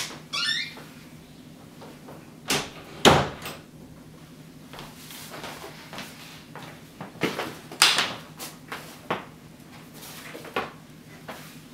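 An interior door creaking and knocking shut, the loudest knock about three seconds in. Several scattered knocks and clunks follow later as furniture is handled.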